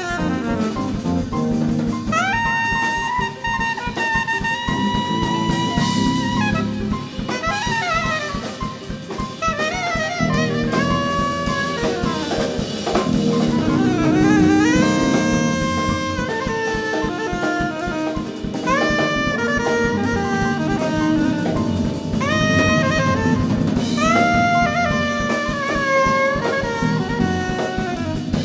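Live jazz band: a soprano saxophone plays the lead with fast upward-sweeping runs and held notes, over a drum kit with cymbals and bass.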